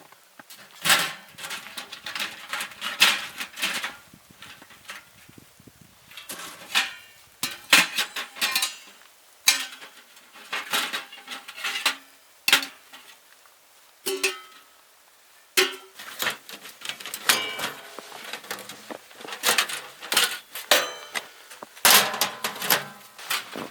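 Irregular clinks and clatter of objects being handled, several of them ringing briefly like metal cookware knocking together.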